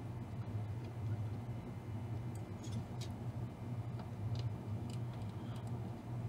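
Soldering a resistor lead into a circuit-board eyelet: a few faint, scattered ticks and crackles of solder flux spitting under the iron, over a steady low hum.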